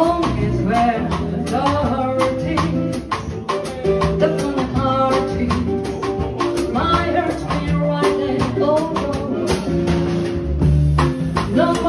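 Live acoustic quartet playing a song: a singer over guitar and bass, with drums keeping a steady beat.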